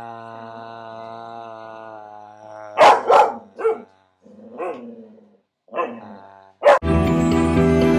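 A long steady held tone, then a dog barking about five times, short and loud. Music starts near the end.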